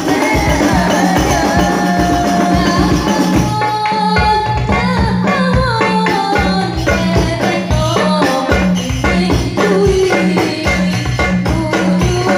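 Sholawat devotional song: a woman sings an ornamented, winding melody into a microphone over hadroh frame drums (rebana) beating a steady, driving rhythm.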